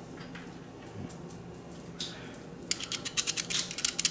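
Steel screwdriver bit dragged through the slot of a plastic magnetizer/demagnetizer block to demagnetize it: a couple of faint clicks, then a quick ratcheting run of small clicks for about a second near the end.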